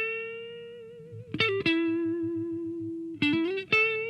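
Fender Telecaster electric guitar on its neck pickup, played through a Marshall 6100 amp: a single note struck and left to ring with a slight vibrato, a quick run of notes about a second and a half in, a lower note held with vibrato, then another quick run ending on a held note.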